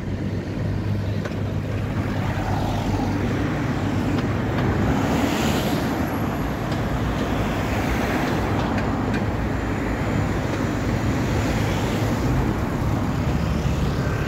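City street traffic: cars and vans driving past, with a low engine hum at first and vehicles swelling louder as they pass about five and eight seconds in.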